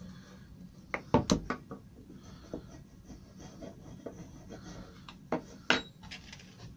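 A steel bar rubbed and knocked along the corner of a mitred beech joint to burnish a small gap closed: metal scraping on wood with sharp clinks, a cluster of them about a second in. Two more clinks near the end as the bar is laid down on the plywood board.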